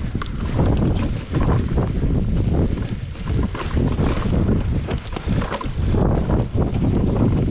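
Wind buffeting the microphone while a mountain bike rides over a rough trail, a steady low rumble broken by many small irregular knocks and rattles.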